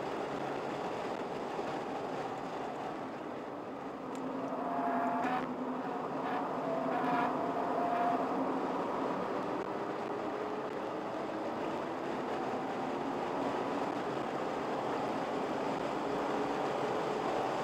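Car engine and tyre/road noise heard inside the cabin during hard track driving. It gets louder about four seconds in, with the engine note breaking twice as the car slows through a corner, then climbs steadily as the car accelerates down the straight.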